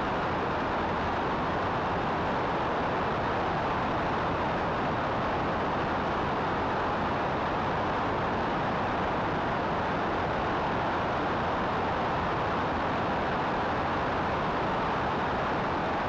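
Steady rush of airflow mixed with the engine and propeller drone of a Cessna 172 in flight, heard through a GoPro mounted on the wing, unchanging throughout.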